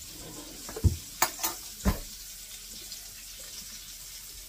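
Burger patties frying in a pan on a gas stove, a steady sizzling hiss. About a second in come a few knocks and taps as a spoon scrapes dressing out of a jar into a plastic mixing bowl.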